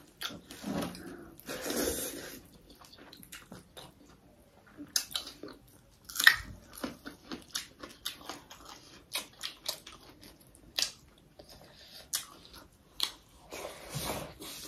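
A person chewing and biting food close to the microphone: irregular mouth clicks and smacks, with a louder one about six seconds in.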